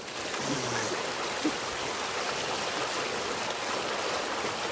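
A steady rush of water flowing down a water slide chute and over a person lying in it.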